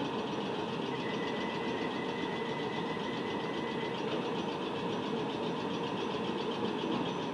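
Class 377 electric multiple unit standing at the platform, its onboard equipment humming steadily, with a faint high whine from about one second in until about four seconds in.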